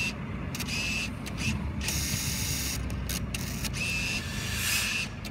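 Motorised banknote acceptor in a self-service fuel pump's cash terminal whirring in short stop-start bursts with a thin whine as it runs a 20-euro note through. This is the machine handling a note that it rejects.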